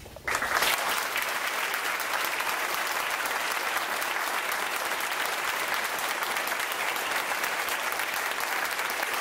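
Audience applauding, starting suddenly just after the start and keeping up at an even strength.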